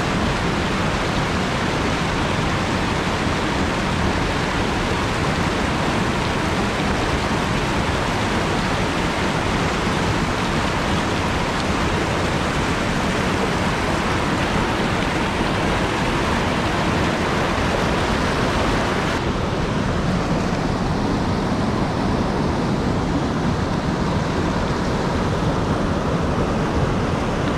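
Fast mountain stream rushing over rocks and a small cascade: a steady, even wash of white water. About two-thirds of the way through it turns duller, with less hiss.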